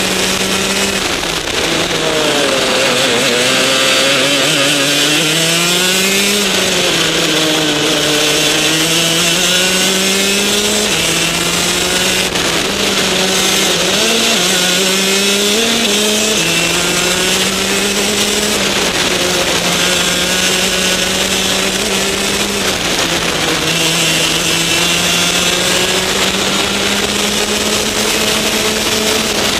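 Rotax DD2 kart's 125cc two-stroke engine at racing speed, heard onboard: its pitch drops several times as the kart slows for corners and climbs again on the straights.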